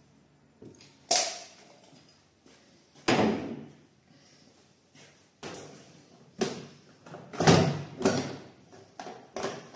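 Workshop handling noises: a series of about seven sharp knocks and clunks spread through the stretch, the loudest about a second, three seconds and seven and a half seconds in. Among them is a caulking gun being set down on the wooden table.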